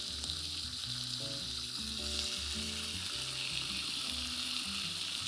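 Marinated rib chops sizzling steadily in a hot nonstick frying pan, frying in the oil of their own marinade with no extra oil added.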